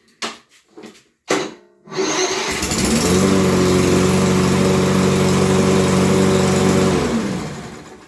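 Toro lawn mower engine brought to life by its electric starter: a sharp knock about a second in, then the engine catches about two seconds in, runs steadily for about five seconds and winds down near the end. The electric start works now that a blown 40 amp fuse has been replaced.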